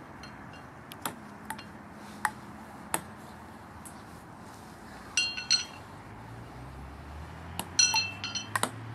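Metal horseshoes clanking, metal on metal with a short ring. A few sharp knocks come first, then two ringing clusters of two or three clanks each, one about halfway through and one near the end.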